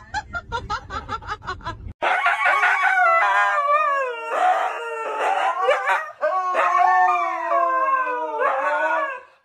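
Road rumble from a moving car for about two seconds, then two huskies howling together in long, overlapping wails that rise and fall in pitch.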